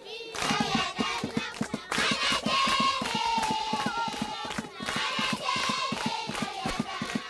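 A group of children singing together to a quick, steady beat of hands.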